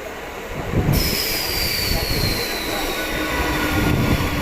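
Mumbai suburban local train running on the track. About a second in it gets suddenly louder, with a rushing noise and a high wheel squeal that slowly falls in pitch over low rumbling and knocking.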